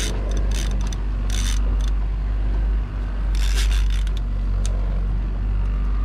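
Baitcasting reel clicking and ratcheting in short bursts while a hooked salmon is played on a bent trolling rod, over the steady low hum of the boat's outboard motor.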